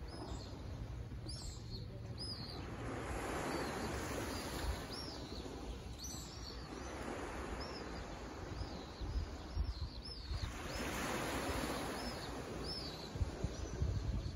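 Small waves washing gently onto a sandy beach, swelling and fading twice, while a bird gives many short, repeated high chirps.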